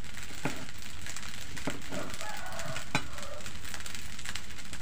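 Knife cutting fried tofu into small pieces, with three sharp knocks of the blade against the dish, over a steady crackling hiss.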